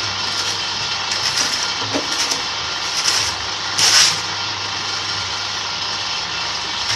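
Electric concrete-block press machine running, its electric motor giving a steady hum under a constant mechanical din. Several short hissing bursts come through it, the loudest about four seconds in.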